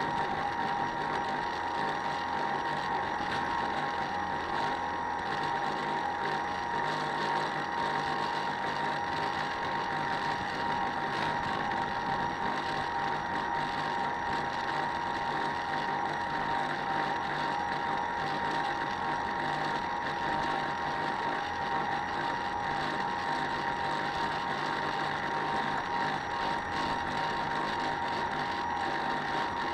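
Model boat's small motor running steadily, a constant high whine with an even hum beneath it.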